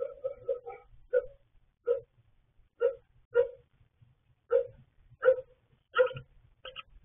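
Bird calls inside a nest box: short, clipped notes, a quick run of them near the start and then one roughly every half second to a second.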